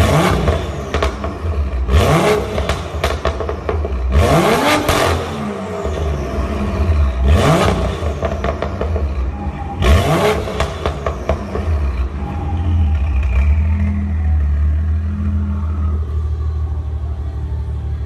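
BMW M2's turbocharged straight-six through an Armytrix valvetronic exhaust, revved in about five sharp blips a couple of seconds apart, then settling to a steady run for the last several seconds.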